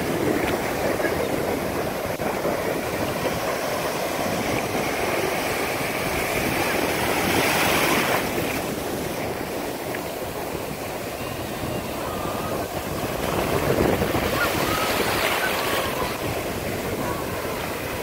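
Small ocean waves breaking in shallow surf and washing in as a steady rush of foam, swelling louder twice.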